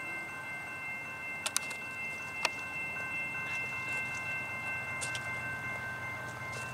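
BNSF intermodal freight train approaching: a low rumble that grows about five seconds in, under a steady high multi-note tone held throughout. A few sharp clicks stand out, two close together about a second and a half in and one about a second later.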